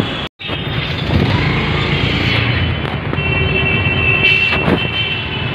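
Busy city road traffic: cars, taxis and buses running past with a steady low rumble and tyre noise. The sound drops out for a split second just after the start, and a high steady tone runs for about two seconds in the second half.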